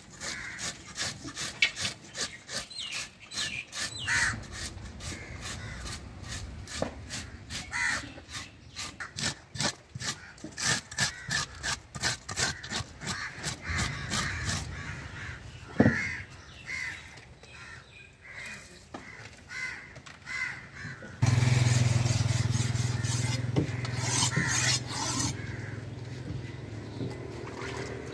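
Knife scraping the scales off a large cobia, a quick run of rasping strokes, a few each second, with crows cawing. About three-quarters of the way through, a steady low engine drone sets in suddenly and is the loudest sound.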